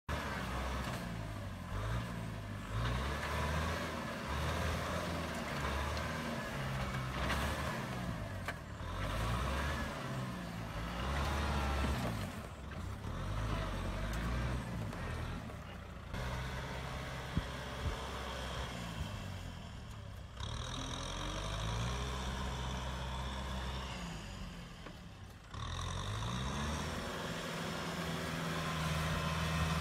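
Kubota M6040 tractor's diesel engine working under load in mud, its pitch rising and falling again and again as it revs, with several abrupt breaks in the sound.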